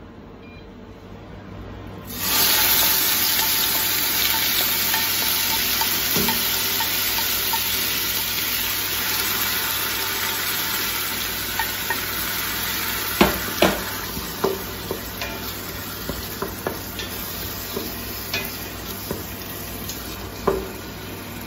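Blended onion dropped into hot olive oil in a stainless steel pot about two seconds in, setting off a sudden, steady sizzle as it fries. A wooden spoon stirs it, knocking lightly against the pot now and then in the second half.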